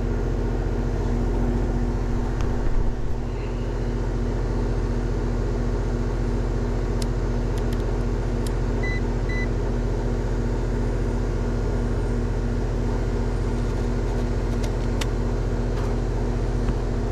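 Goodman heat pump outdoor unit running steadily, its compressor and condenser fan motor giving an even hum. A few faint clicks and two short faint beeps come about halfway through.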